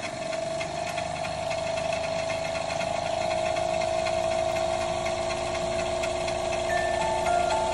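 Wilesco paper-strip organ driven by a toy steam engine through gearing, sounding one long held note over the even whir and rattle of the running mechanism. A second, lower note joins about three seconds in, and short notes start again near the end.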